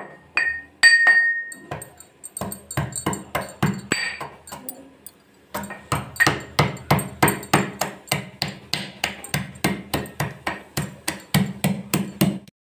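Steel pestle pounding fresh ginger in a metal mortar: sharp knocks, the first few ringing off the metal, then a steady beat of about three strikes a second that stops abruptly just before the end.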